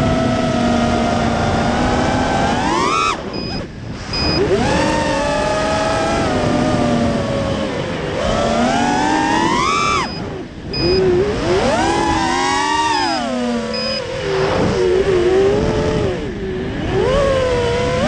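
FPV racing quadcopter's brushless motors and propellers whining in flight, heard from the onboard camera. The pitch climbs with throttle, drops sharply when the throttle is cut near 3 s and again near 10 s, then wavers up and down. The wavering is the mid-throttle oscillation the frame swap has not cured.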